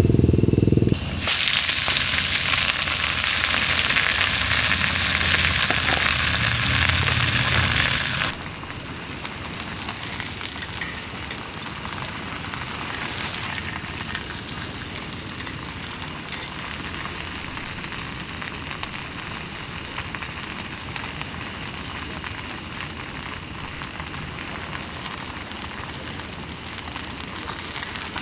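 Thick deep-fried tofu sizzling in oil in a hot skillet. The sizzle is loud for the first several seconds, then settles to a quieter, steady sizzle. A brief low rumble comes right at the start.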